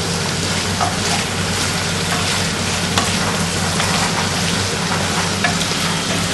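Chicken pieces sizzling in a pan of tomato sauce with chilies and garlic, stirred with a wooden spoon: a steady crackling sizzle with small ticks and one sharper knock about three seconds in.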